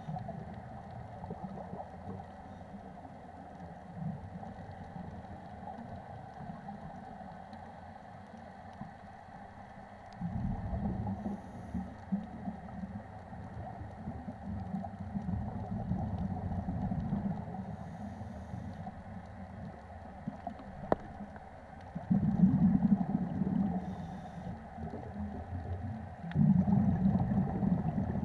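Underwater sound heard through a wrist-mounted sports camera's waterproof housing: a muffled low rumble of water moving past the camera. It swells louder about ten seconds in and twice more near the end.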